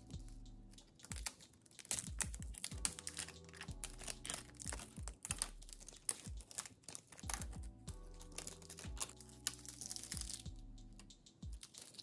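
Clear protective plastic film being peeled off a graphics card's shroud. It crinkles and crackles in quick, irregular clicks over soft background music with held low notes.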